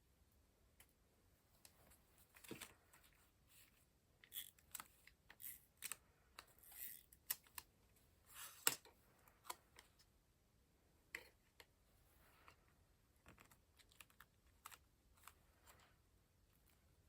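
Faint, scattered light clicks, taps and short rustles of paper and craft materials being handled on a work surface. The sharpest click comes a little past the middle.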